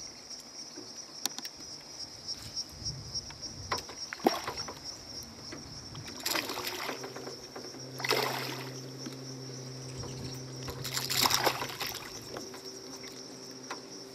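A hooked peacock bass thrashing and splashing at the water's surface as it is reeled in, in three bursts of splashing. A steady high buzz runs underneath.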